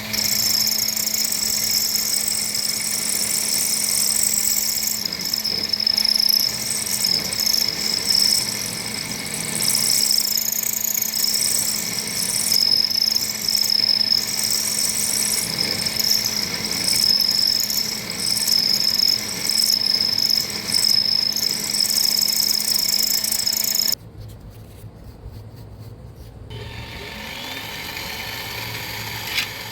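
Power machine tool cutting a hole in a steel brake bracket: a steady motor hum under a high, wavering cutting noise. The cutting stops abruptly about 24 seconds in, leaving a quieter low hum.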